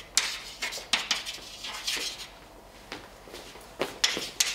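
Chalk writing on a blackboard: a run of sharp, irregular taps and scratches as symbols are chalked up, several strokes a second at times.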